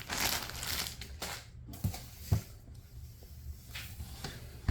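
Handling noises of a new laptop and its packaging: a rustle, then two light knocks about two seconds in, followed by faint scuffs.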